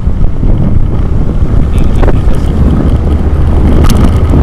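Steady wind buffeting on an action camera's microphone while it moves along a road, over a loud, continuous low rumble of the vehicle's engine and tyres.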